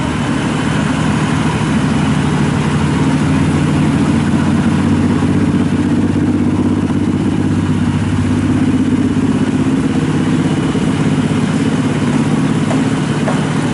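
A large engine running steadily with a low, even hum, its tone shifting slightly about two-thirds of the way through.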